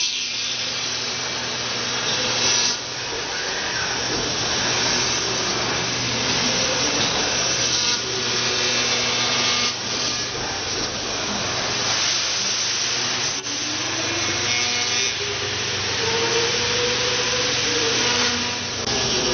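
5-axis CNC router spindle carving a block of white foam: a steady hissing cut with a running hum underneath. Near the end, pitched whines rise and fall as the head moves.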